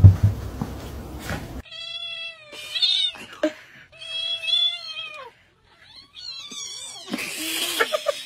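A grey-and-white domestic cat lying with her kittens gives four drawn-out, wavering meows. The first second and a half holds knocks and scuffling, and near the end there is a short breathy burst.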